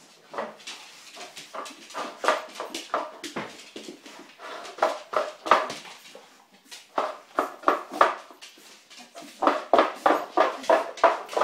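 A spaniel's claws tapping on a hardwood floor as she prances on the spot, excited for her food: quick clicks several a second, in bursts with short pauses between.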